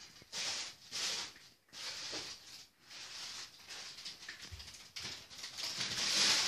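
A cat eating from a bowl, chewing in irregular bursts of noisy crunching.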